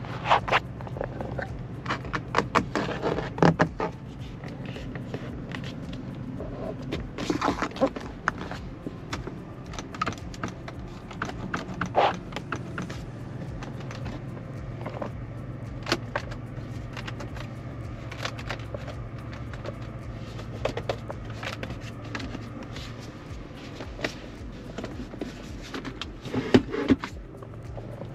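Jeep Avenger 1.2 turbo three-cylinder petrol driving at a steady pace: an even low engine and road drone, with frequent irregular knocks and clicks on top, the loudest a cluster about three seconds in and single sharp ones near 12 and 27 seconds.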